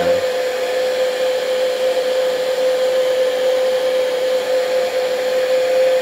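Heat gun blowing steadily, a rushing airflow with a constant hum, shrinking heat-shrink tubing over a soldered wire connector.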